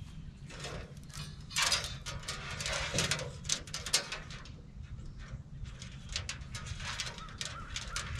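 Rustling and small clicks of a thin-wired string of LED Christmas lights being handled and wrapped around a tractor's steering wheel, busiest from about one and a half to four seconds in, over a steady low rumble.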